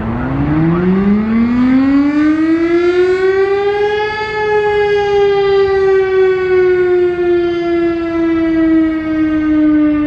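Civil-defense warning siren winding up, its wail rising in pitch for about four seconds, then slowly falling as it winds down.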